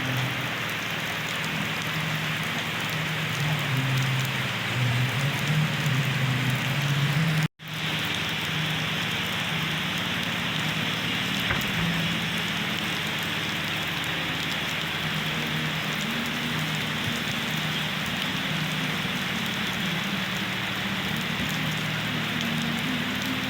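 Steady rain falling, an even hiss that drops out for an instant about seven and a half seconds in.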